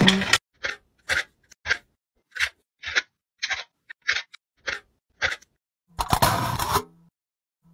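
Food being cut: about a dozen short, crisp cutting strokes, roughly two a second, then a longer rustling, crunching burst about six seconds in.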